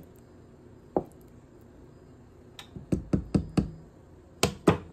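Wooden spoon knocking against the side of a stainless steel pot of thick stew while stirring: a single knock, then a quick run of about five, then two sharper knocks near the end.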